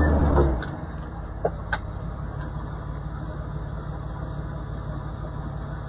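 Jeep engine idling steadily, heard from the vehicle, after a louder rumble that drops away about half a second in; a couple of light clicks come just after a second and a half.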